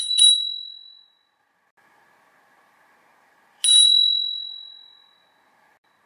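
Small chrome dome bicycle bell struck by its thumb lever: a quick double ding at the start, then a single ding about three and a half seconds later, each ringing clear and high and fading away over a second or so.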